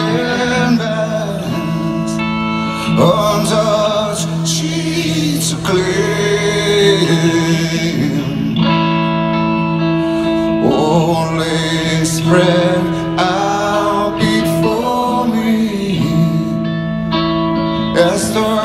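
Live song performed solo by a male singer with guitar: sung melody over steadily strummed chords, heard through the venue's sound system from within the crowd.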